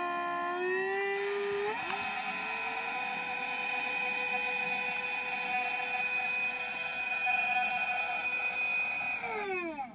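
Two tiny 6 mm motors of a small RC boat running its propellers with a high-pitched whine that climbs in pitch over the first couple of seconds, holds steady, then winds down and stops just before the end.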